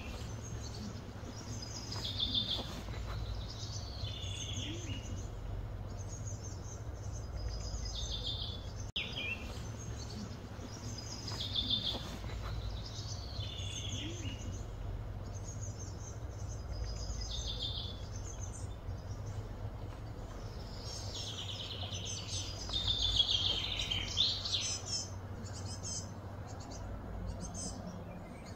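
A bird repeating a short, high-pitched call phrase every two to three seconds, with a busier run of calls near the end, over a steady low background hum.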